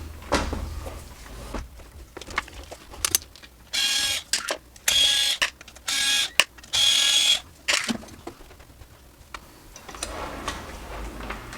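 Small electric vacuum pump of a desoldering tool running in four short bursts with a steady whine, sucking molten solder from the output transistor joints, with light clicks and handling knocks between.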